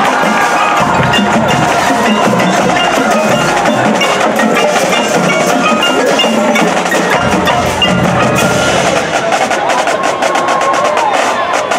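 Marching band music with the front ensemble's mallet percussion and drum strikes to the fore: quick pitched mallet notes over a steady flow of percussive hits.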